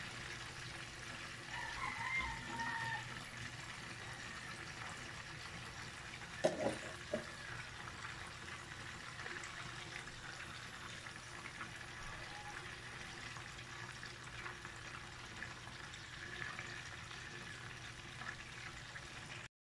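Whole chicken shallow-frying in hot oil in a pan, a steady sizzle. Two short knocks sound about six and a half seconds in.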